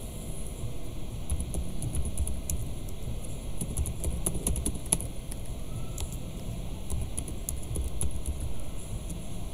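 Computer keyboard keys clicking in short, irregular runs as text is typed, over a steady low background rumble.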